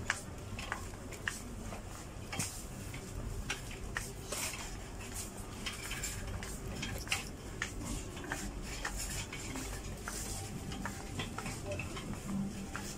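Metal shopping trolley rattling and clinking as it is pushed along, with many scattered small clicks and knocks.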